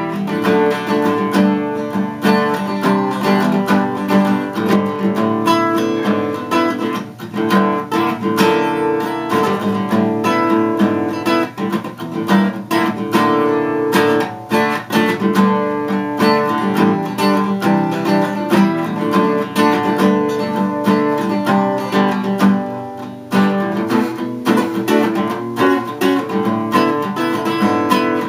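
Acoustic guitar strummed in a steady rhythm, an instrumental solo piece with no singing.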